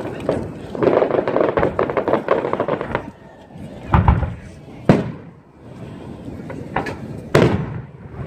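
Aerial fireworks exploding overhead: a couple of seconds of rapid crackling, then about four separate sharp bangs, each trailing off in echo.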